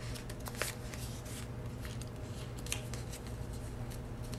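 Fingernails picking at the edge of a paper sticker to peel it off its sticker sheet, with light paper rustles and scattered small clicks; the sticker is slow to come free. A low steady hum sits underneath.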